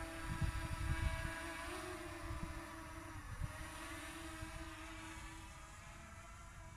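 DJI Mini 2 quadcopter's propellers giving a steady, high buzz as it hovers a few metres up, the pitch wavering for a moment around two to three seconds in, then growing fainter as the drone starts to climb and fly off. Low rumbling bumps sit under it in the first second.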